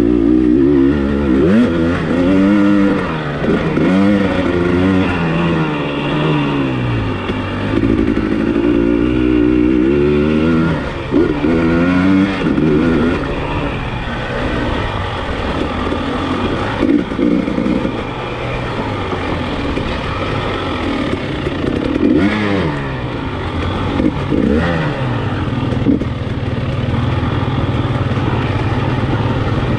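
KTM EXC enduro motorcycle engine heard on board, its pitch rising and falling again and again as the throttle opens and closes over a dirt track. A few short knocks come from the rough ground, and the engine settles to a steadier note near the end.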